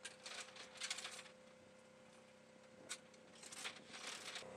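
Light clicking and rustling from a belt of linked machine-gun cartridges being handled as a helicopter door gun is loaded. The sounds come in short clusters, over a faint steady hum.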